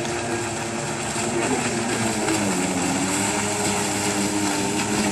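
Jet ski engine running at speed as it passes close by, its pitch dropping about two seconds in, over a steady hiss.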